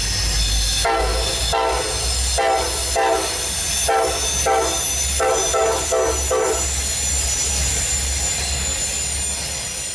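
Diesel locomotive horn blowing about nine separate blasts over the first six and a half seconds, over a steady running sound. The horn then stops and the running sound carries on.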